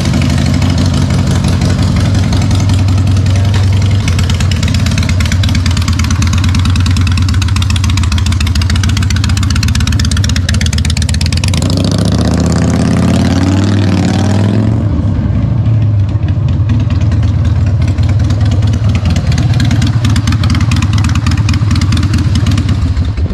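Motorcycle engine idling loudly, with one rev about halfway through that rises in pitch and drops back, then idling on until it stops abruptly at the end.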